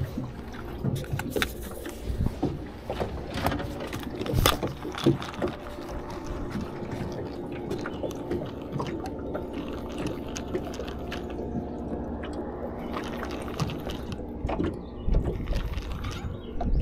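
Lake water lapping and sloshing against a small aluminum boat's hull, with several sharp knocks on the boat, the loudest about four and a half seconds in, over a faint steady hum.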